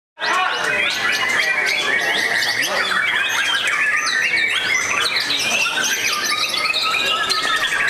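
Many caged white-rumped shamas singing at once: a dense, unbroken tangle of overlapping whistles, trills and chirps.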